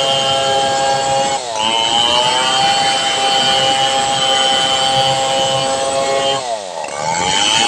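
Large two-stroke Stihl 070 chainsaw running at high revs while ripping lengthwise along a log. The engine pitch dips and recovers briefly about a second and a half in, then drops lower for nearly a second near the end before climbing back.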